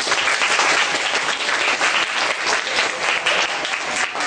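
A class of students applauding: many hands clapping at once in a dense, steady patter.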